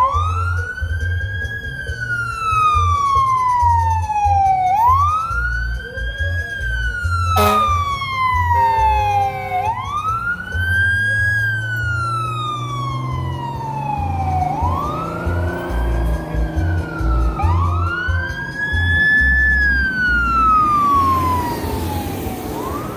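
Fire apparatus siren winding up quickly and then falling slowly in pitch, over and over, about five wails in all, with the deep rumble of the fire trucks' diesel engines underneath.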